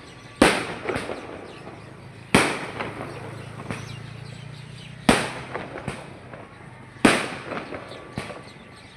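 Fireworks exploding: four loud bangs about two seconds apart, each followed by a few smaller cracks and an echo that dies away.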